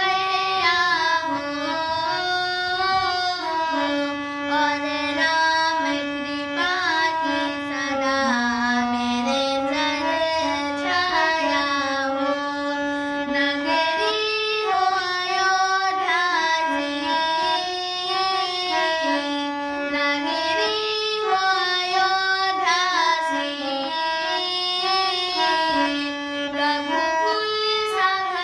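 A high voice singing a bhajan (Hindu devotional song) to Shri Ram: one melodic line moving in steps between long held notes.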